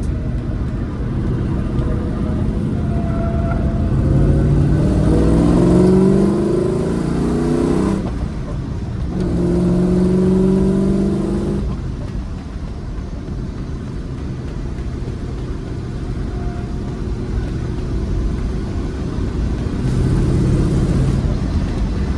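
Rover SD1 Vitesse's 3.5-litre V8 pulling hard, its note rising for a few seconds, dropping at a gear change about eight seconds in, pulling again, then easing off to a steady, quieter cruise.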